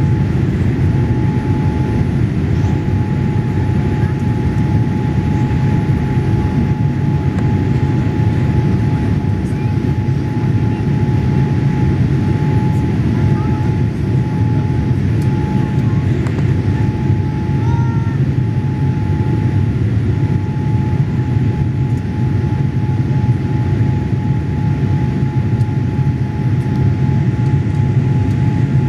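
Cabin noise inside a Boeing 787 Dreamliner climbing after takeoff: the steady, loud roar of the engines and airflow, with one constant tone held above it.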